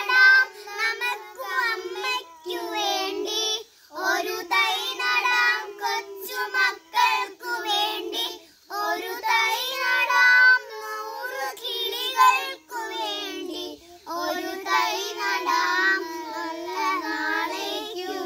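A group of young girls singing a song together in unison, in phrases a few seconds long with short breaks between them.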